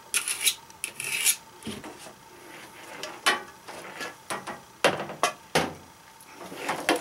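Rubbing and scraping against a wooden board, a few rasping strokes in the first second or so, followed by several sharp knocks of tools or parts being handled on the wood.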